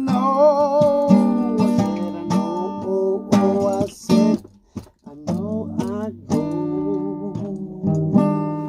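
Acoustic guitar played freely, sharp strums over ringing chords, with some notes wavering and bending in pitch. The playing breaks off briefly about halfway through, then picks up again.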